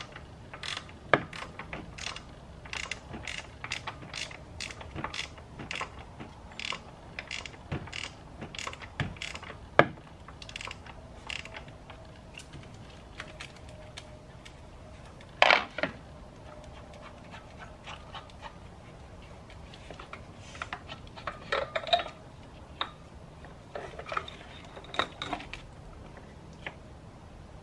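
Socket ratchet clicking in a steady run, about two or three clicks a second, as the oil filter housing cap on a V6 engine is unscrewed. About halfway through there is one louder knock, then a few scattered clicks and clatter of tools being handled.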